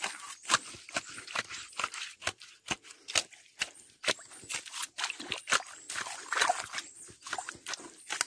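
Hand digging in wet mangrove mud: irregular wet squelches and sharp clicks, several a second.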